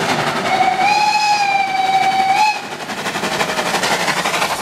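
Steam locomotive 70 083, a small Bavarian Pt 2/3 tank engine, sounds a steady whistle blast of about two seconds, starting about half a second in. Rapid, evenly spaced exhaust chuffs continue underneath as it passes close by under steam.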